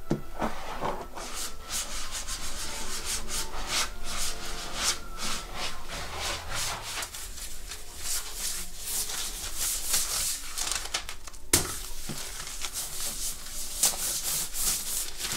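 Folded paper rubbed back and forth over an inked intaglio printing plate in quick repeated wiping strokes, clearing the surplus ink from its surface before printing. One sharp click about three quarters of the way in.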